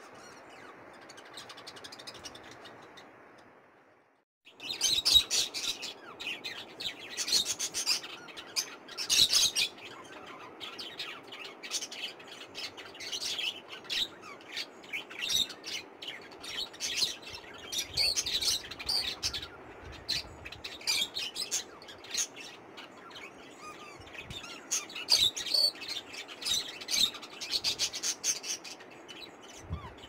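Pet parrots in an aviary, budgerigars and a cockatiel, chirping: many quick, high chirps in rapid clusters. They start about four seconds in, after a steady hiss that stops short.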